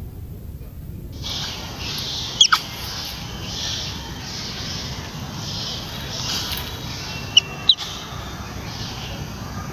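Outdoor forest ambience: a high, pulsing insect buzz starts about a second in over a low wind rumble on the microphone. Short sharp high calls come about two and a half seconds in and twice more, close together, near the end.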